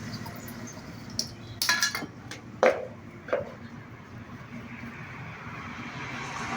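A few short clinks and knocks of hard objects being handled, the loudest a sharp knock about two and a half seconds in, followed by a weaker one.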